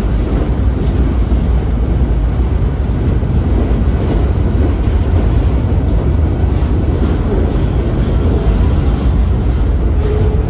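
Freight cars rolling past close by: a loud, steady low rumble of steel wheels on the rails.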